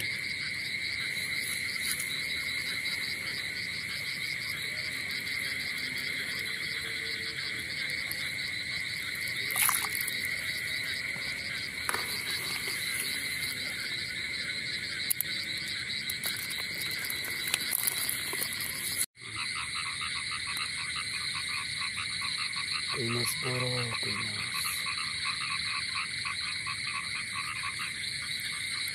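Dense chorus of frogs calling in rain-flooded grass, a steady, fast-pulsing trill of many voices; it breaks off for an instant about two-thirds of the way through and resumes. A few faint splashes and clicks sound over it.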